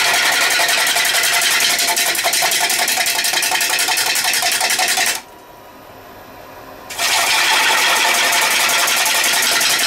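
Bowl gouge cutting a spinning winged pine blank on a wood lathe: a loud, dense hiss of shavings with rapid, even ticking as the tool strikes the spinning wings. The cut breaks off for about two seconds a little past midway, then resumes.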